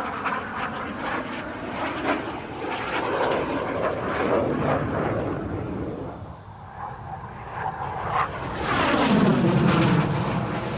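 BAE Hawk T1A jet trainer's Adour turbofan engine in display flight overhead. The jet noise eases briefly about two-thirds of the way through, then swells to its loudest near the end as the jet passes close, with a whine that falls in pitch.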